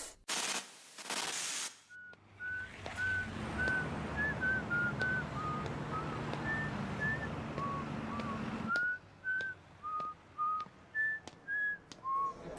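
A person whistling a slow tune in short separate notes that step up and down. A low rumble runs under the first part and stops about nine seconds in. A brief burst of noise comes just before the whistling.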